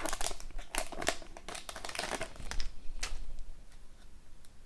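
Plastic wrapper of a hockey card pack crinkling and cards being handled, in a quick run of short rustles that thins out after about three seconds.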